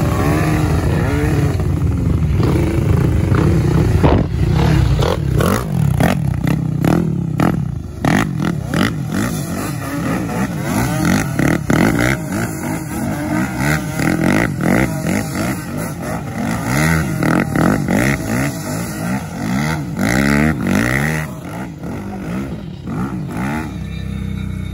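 ATV engine running under throttle, its pitch rising and falling as it revs up and eases off, with frequent clattering knocks from about four seconds in.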